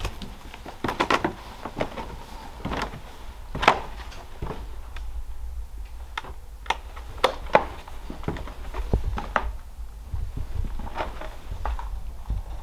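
Footsteps going down wooden stairs into a basement: a string of irregular knocks and thuds, over a steady low rumble.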